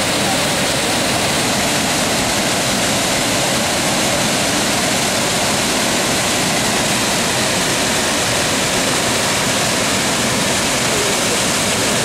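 Mountain waterfall cascading over rock steps: a loud, steady rush of white water.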